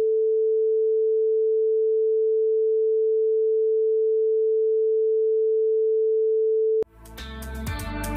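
A steady single-pitch test tone played with colour bars to mark the slot where commercials are to be inserted in the broadcast feed. It cuts off suddenly near the end and music starts.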